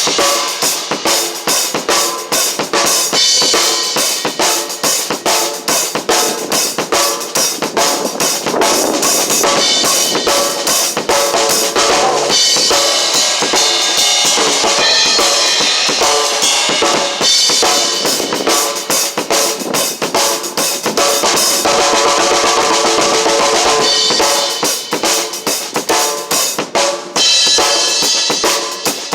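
Drum kit played continuously in a busy pattern of bass drum, snare and cymbal strikes, with the cymbals ringing over the top.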